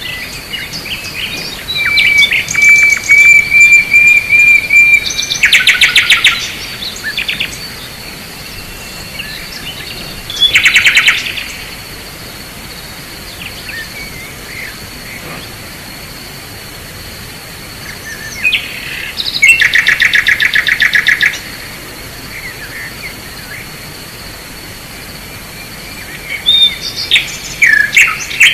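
Songbirds singing in several bursts of rapid trills a few seconds apart, with quieter stretches between, over a steady high-pitched whine.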